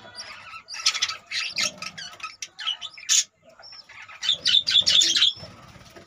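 Budgerigars chirping, in two quick runs of short, high, scratchy chirps.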